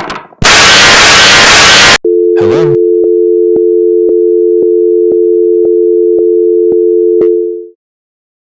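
A burst of very loud static, then a steady two-note telephone line tone with a faint tick about twice a second, which cuts off after about five and a half seconds: the emergency call has gone dead.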